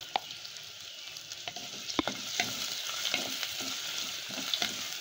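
Crushed garlic, ginger and dried red chillies sizzling in hot oil as a tempering, with a spoon stirring them and giving scattered knocks and scrapes against the pan over a steady hiss.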